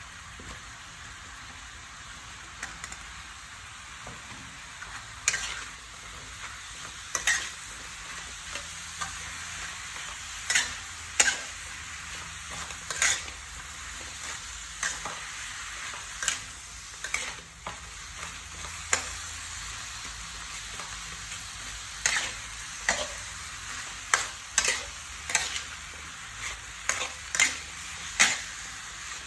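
Beef and vegetables sizzling in a wok with a steady hiss, while a metal spatula scrapes and knocks against the pan in irregular strokes that come more often from about five seconds in.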